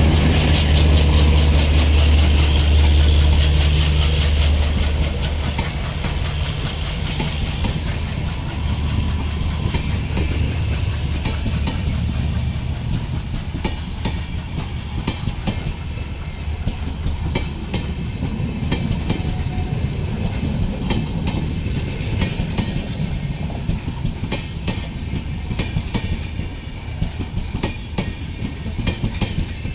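The diesel generator of an LHB power car gives a loud, steady low hum as the car passes, fading out about four to five seconds in. LHB passenger coaches then roll by, their wheels rumbling and clicking over the rail joints.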